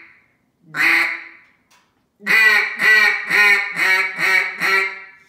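Acrylic double-reed duck call blown by mouth: a single quack about a second in, then a run of six quick quacks about half a second apart, imitating a hen mallard.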